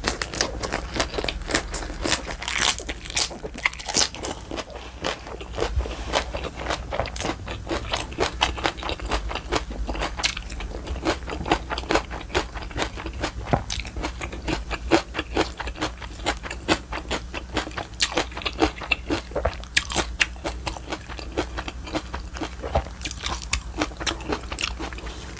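Close-miked eating: a steady run of wet chewing, biting and crunching, full of irregular sharp clicks, as spicy raw oyster salad and boiled pork are eaten.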